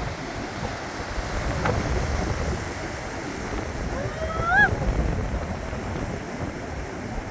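Ocean surf breaking, with wind buffeting the microphone. About four seconds in there is one short pitched call that rises and falls.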